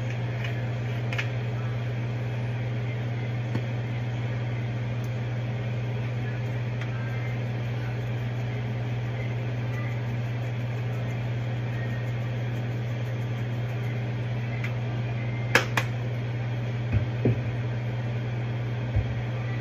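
Steady low fan hum in a kitchen. A few light clicks and knocks come in the last few seconds.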